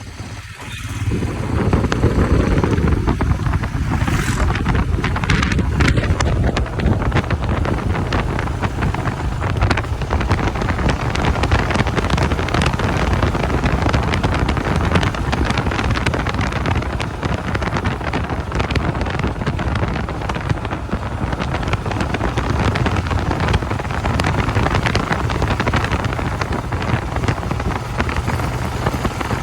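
Royal Enfield Himalayan motorcycle's single-cylinder engine running steadily while riding, with wind buffeting the microphone. The sound grows louder about a second in, then holds.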